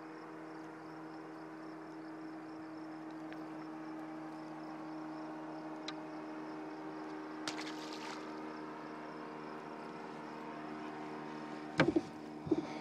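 Boat motor idling with a steady, even hum. A short rustle comes about seven and a half seconds in, and a few sharp knocks near the end.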